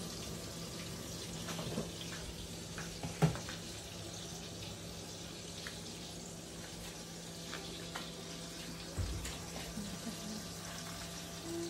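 A steady low hum and an even hiss, broken by a few scattered clicks and knocks, the sharpest about three seconds in.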